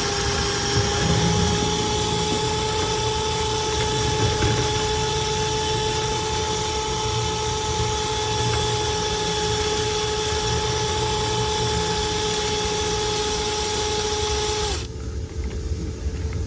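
Power drill spinning a rotary dryer-vent cleaning brush inside the vent duct: a steady motor whine that cuts off abruptly about a second and a half before the end, over a continuous low rumble.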